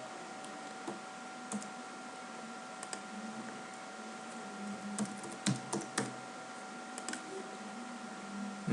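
Computer keyboard and mouse clicks, scattered and irregular, with a quick run of them about five to six seconds in, over a faint steady electrical tone.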